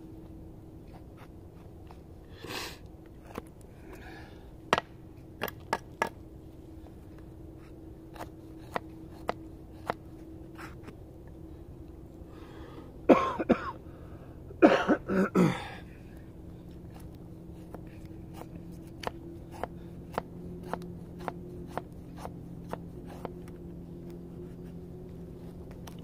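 A man coughing a dry, tickly irritation cough: a short cough early on, then two hard coughing fits about halfway through. Scattered sharp clicks and snaps of knife work on a stick come between them.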